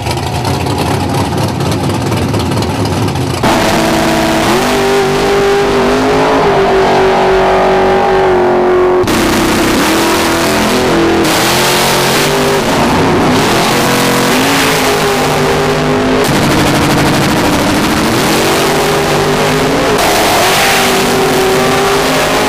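Drag race car engines at full throttle. A few seconds of rough, dense engine noise give way to louder engine sound whose pitch climbs and drops back several times as the cars rev and accelerate.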